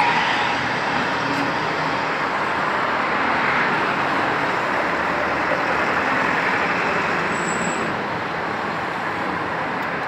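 Steady road traffic noise, an even rush of passing vehicles with no single one standing out.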